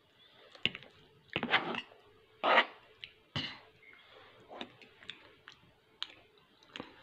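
Close-up eating noises: chewing and mouth smacks, with short irregular clicks and scrapes of a spoon and fork on a plate.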